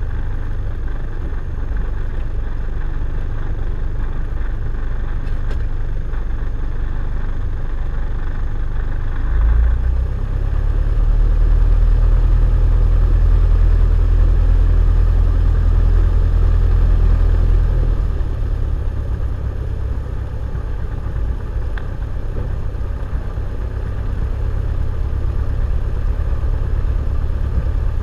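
Cessna 172's piston engine and propeller running at low taxi power. The engine grows louder for about eight seconds midway through, then settles back to a steady low run.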